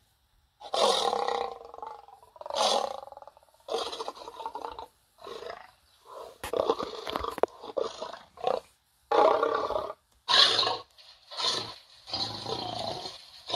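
A person's voice doing werewolf roars and growls: about ten short, rough calls, each under two seconds, with brief pauses between them.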